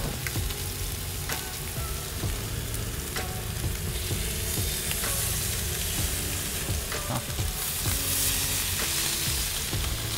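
Cubera snapper fillets sizzling in hot avocado oil in a large cast-iron skillet as they are laid in and pressed down by hand, with a few small clicks; the sizzle grows louder near the end as more fillets go in.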